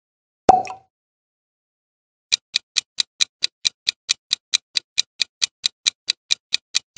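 Ticking-clock sound effect for a quiz countdown timer: evenly spaced sharp ticks, about four to five a second, starting a little over two seconds in. About half a second in there is a single short pop with a brief ring.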